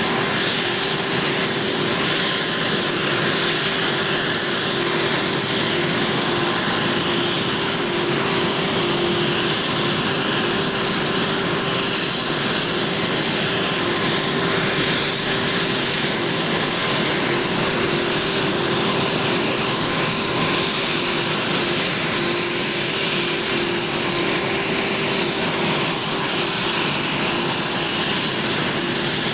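Jet engines of the taxiing Boeing 747 Air Force One (VC-25A) running at low taxi power. The sound is a steady rushing noise with a high whine and a lower steady hum.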